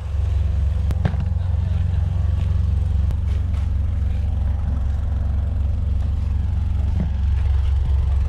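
A large engine idling steadily, a deep even hum, with a few knocks and clatters as bags and boxes are handled.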